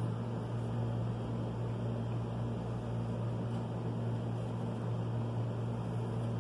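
A steady low electrical hum with a faint even hiss, like a fan or motor running in the room, unchanging throughout.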